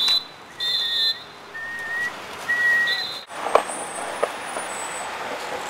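Traffic agent's whistle blown in several short, shrill blasts about half a second each. After a cut come street noise and a few sharp knocks.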